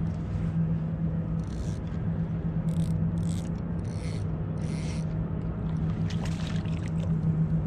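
Fishing reel working in several short raspy bursts while a hooked fish is played, with a steady low hum underneath.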